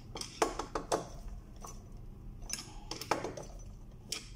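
Screwdriver driving a screw into a finned metal lamp housing: a handful of short sharp metallic clicks at irregular intervals as the driver turns and seats the screw.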